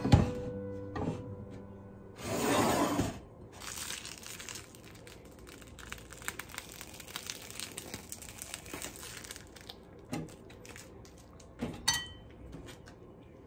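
Plastic piping bag crinkling and crackling as whipped cream is squeezed out of it onto a cake. A brief rustle comes about two seconds in, and a few light knocks near the end, one ringing briefly.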